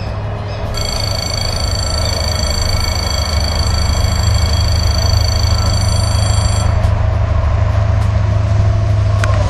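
Train approaching on the line: a loud, steady rumble that grows a little louder, with a high steady whine from about one second in until about seven seconds. It cuts off abruptly at the very end.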